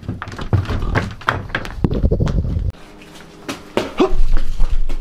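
Handheld microphone being grabbed and carried: knocks, thumps and rumbling handling noise that cut off sharply a little past halfway. About a second later, wind rumbles loudly on a microphone, with a few knocks.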